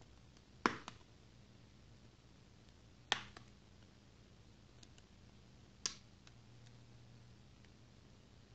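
Three sharp plastic clicks about two and a half seconds apart, with a few fainter ticks between them: the clips of a Xiaomi Redmi Note's back panel snapping free as the cover is pried off.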